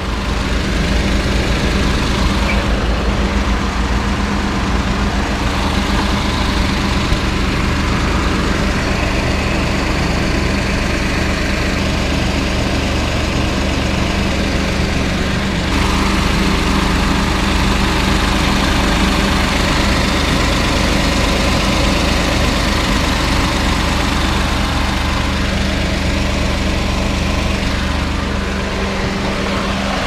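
Suzuki K6A 660 cc three-cylinder engine idling steadily with the air conditioning switched on while the system is being recharged with refrigerant.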